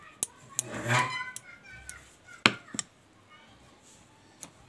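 Several sharp taps and clicks, the loudest about two and a half seconds in, with a short vocal sound about a second in.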